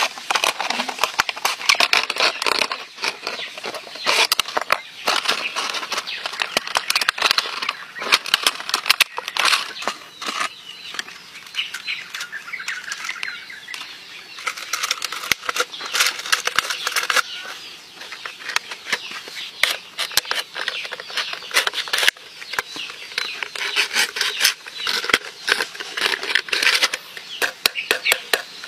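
A knife cutting and scraping thin plastic bottle, with the plastic crackling as it is bent and handled. There is a dense, irregular run of crackles and clicks, with brief lulls now and then.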